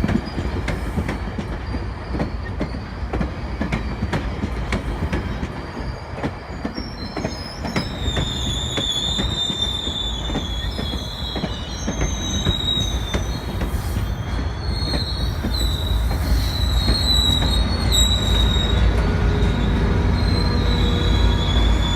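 GO Transit commuter train rolling along the track with a low rumble and wheel clicks, growing louder toward the end. Wavering, high-pitched wheel squeal comes in about eight seconds in and continues.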